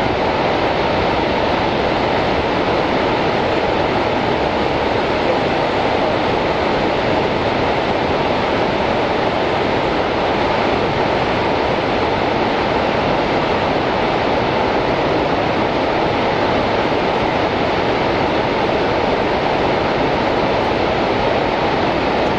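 The American Falls at Niagara, a large waterfall plunging onto rocks, making a loud, steady, unbroken rush of falling water.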